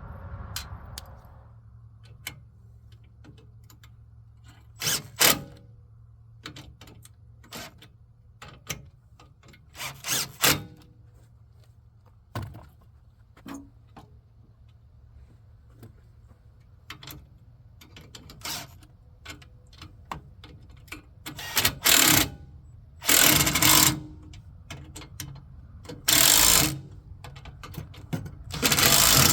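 Lock nuts being tightened on bolts: scattered metal clicks and clinks of hardware and tools, with several short loud bursts of a tool spinning, most of them in the last third, over a low steady hum.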